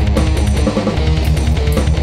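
Heavy metal background music with electric guitar over fast, driving drums; the low bass drops out for a moment just under a second in.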